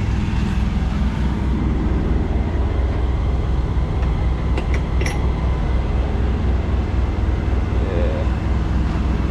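The diesel engine of a Peterbilt semi truck running at low revs, a steady low drone throughout. A brief high chirp comes about halfway through.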